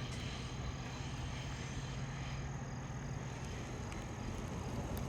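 Faint rumble of a passing train dying away, a low hum that fades out after about three seconds under outdoor background noise.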